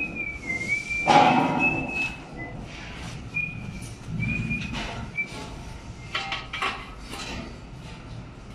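A person whistling a wavering, high tune in short phrases over construction work, with a loud knock about a second in and further knocks and scrapes later from the lintel being fitted into the precast wall.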